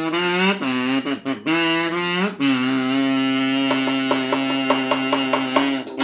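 Fiddle bowed in a psychobilly style, with sliding, bending notes at first. About two and a half seconds in it settles on a long held low note with quick short notes over it, about four a second.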